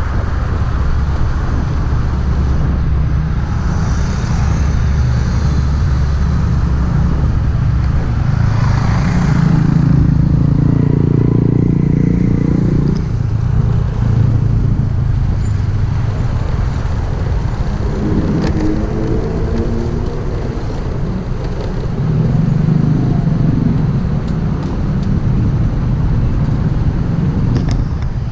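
Motorcycle being ridden in traffic: its engine runs over a steady, heavy road rumble, with engine notes swelling and shifting in pitch a few times.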